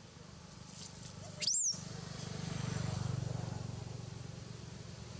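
Low steady engine drone that swells and fades in the middle, with one short high chirp that rises and falls about a second and a half in.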